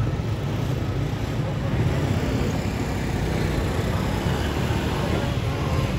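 Jet airliner flying low overhead, its engines making a steady, deep rumbling noise.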